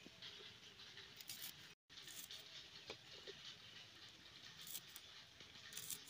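Faint, scattered small ticks and scrapes of shallots being cut against a knife blade, near silence otherwise; the sound cuts out completely for a moment about two seconds in.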